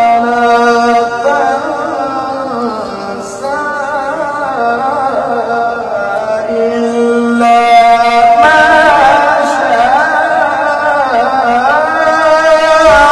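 A man's voice reciting the Qur'an in melodic tilawah style, with long held notes that bend and step between pitches. After a short breath about seven and a half seconds in, the voice climbs higher and louder with wavering ornaments.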